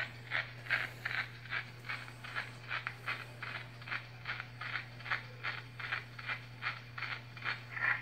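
Edison Standard D phonograph playing back a home-recorded wax cylinder: an even pulse about three times a second over a steady low hum, with the heavy surface noise of the blank.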